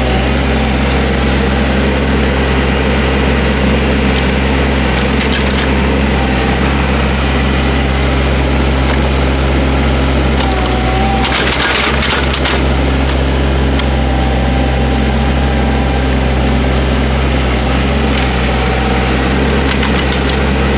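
Small excavator's engine running steadily under load, with a brief burst of crackling and snapping about halfway through.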